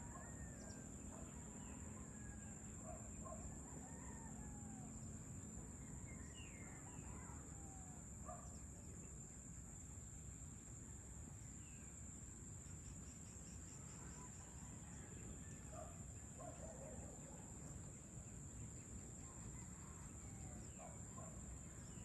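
Dusk ambience: scattered short bird calls and chirps over a steady high-pitched insect drone, with a faint low background rumble.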